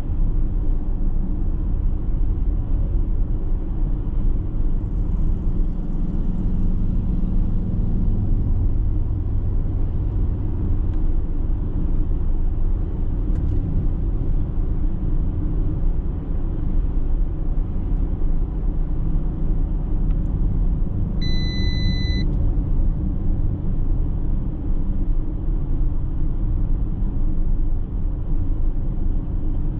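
A steady low rumble of road and tyre noise from the 2021 Audi Q8 S-Line cruising, heard from inside the cabin. About twenty seconds in, a single electronic beep sounds for about a second.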